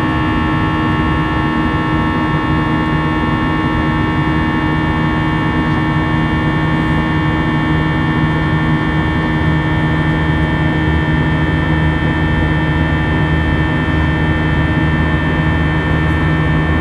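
Airbus A320-200 cabin noise heard from a seat near the front: a steady drone of engines and rushing air with several constant steady tones, unchanging throughout.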